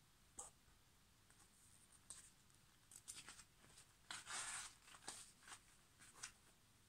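Faint rustling of a large picture book's paper page being turned, a few soft rustles and small clicks with a louder swish about four seconds in.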